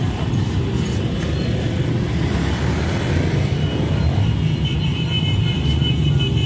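Many motorcycle engines running as a convoy of motorbikes rides past, a dense steady rumble. A few thin steady high tones join in over the last two seconds.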